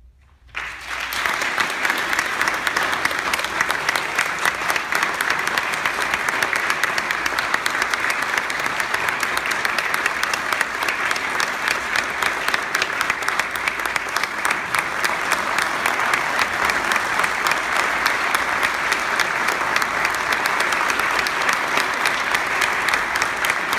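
Audience applauding, with the singers on stage clapping too; dense clapping breaks out suddenly about half a second in and then holds steady.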